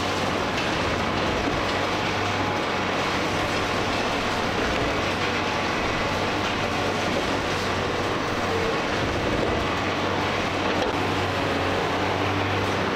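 Komatsu PC490 heavy-duty excavator's diesel engine running steadily with a low hum under a continuous rumbling clatter of demolition work.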